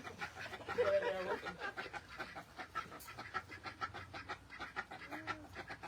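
Chickens clucking and calling, with a pitched call about a second in.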